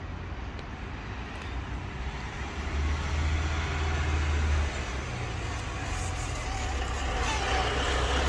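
Urban street background: a steady low rumble of road traffic and vehicle engines, slowly growing louder.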